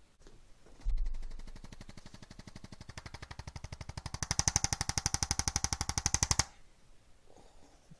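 A handheld mechanical percussion device tapping rapidly, well over ten taps a second. It starts with a thud about a second in, grows louder, and cuts off suddenly near the end.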